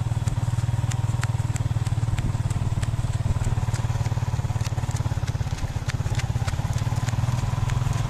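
Small motorcycle engine running steadily at low speed, a constant low hum with fast even pulsing, with scattered light clicks over it.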